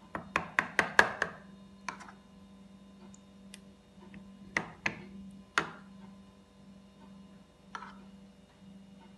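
A spoon tapping against a plastic food container while a thick vegetable-and-egg batter is spooned into it: a quick run of about six taps near the start, then scattered single taps.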